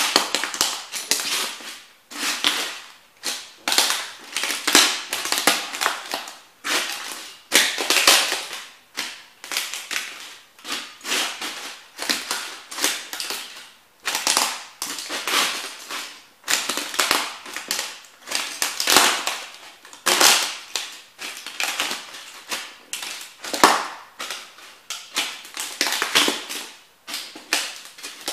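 Rubber Cofra thermo boots stamping and grinding on the broken pieces of model toy train houses. Each step sets off a burst of crunching, crackling and snapping, about one step a second.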